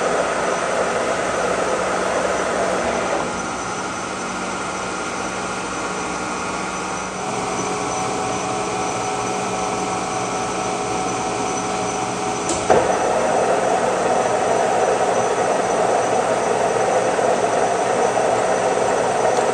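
Old Kearney & Trecker horizontal milling machine running, its spindle gearing giving a steady whine over machine noise. The sound drops a little about three seconds in. A sharp clunk comes about two-thirds of the way through, after which the machine runs louder.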